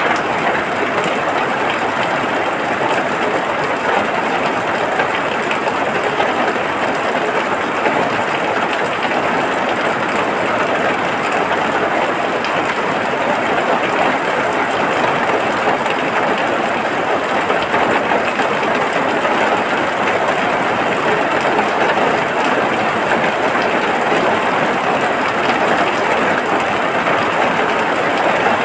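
Steady rain falling, an even unbroken hiss with a fine patter of drops that stays the same throughout.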